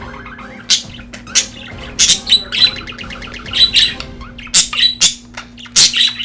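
Budgerigars chirping and squawking in a run of sharp, loud calls, several a second at times, over a steady background tone.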